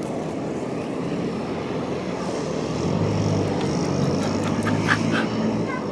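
Steady outdoor traffic hum with a vehicle engine's low drone growing stronger about three seconds in. A few short squeaks and clicks come near the end.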